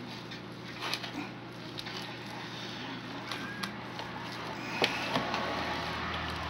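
Wooden spoon stirring a thick mashed-potato mixture in a plastic bowl, with scattered knocks of the spoon against the bowl, the loudest about five seconds in. A steady low hum runs underneath.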